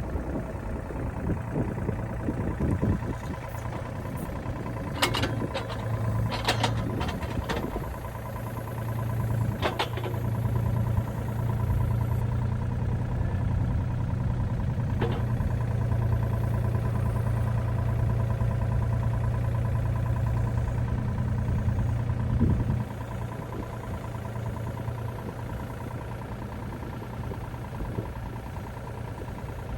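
An engine running steadily. It picks up a little about a third of the way in and drops back to a lower level about three-quarters through, with a few sharp knocks or cracks early on.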